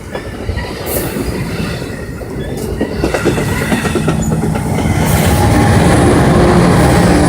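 Train rolling past, its wheels clicking over the rail joints, growing louder over the first five seconds and then holding steady.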